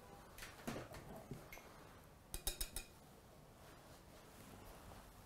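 Glass mixing bowl and spatula giving a few light clinks while cake batter is poured out, with a quick run of about five clinks a little before halfway; otherwise quiet.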